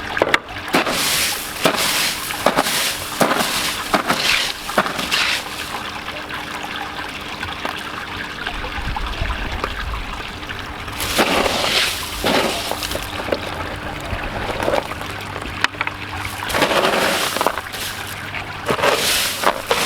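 Hands digging and rummaging through wet grow media in an aquaponic bed, with bursts of splashing and scraping, over a steady trickle of water.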